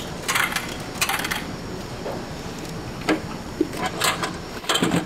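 Vending machine in use: several short, irregular clicks and clatters as it is worked and the item is taken out.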